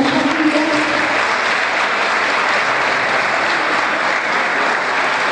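A large crowd of students applauding: dense, even clapping.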